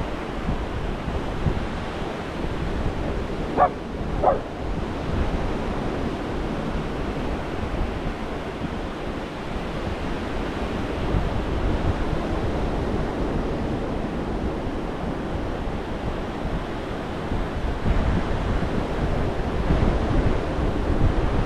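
Gulf of Mexico surf washing steadily up a sand beach, with wind buffeting the microphone. About three and a half seconds in, a dog barks twice in quick succession; these two barks are the loudest sounds.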